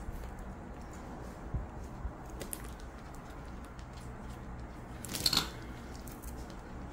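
Faint handling sounds of plastic pearl beads and nylon beading thread: a few light ticks, then a short scratchy rasp about five seconds in, over a low steady hum.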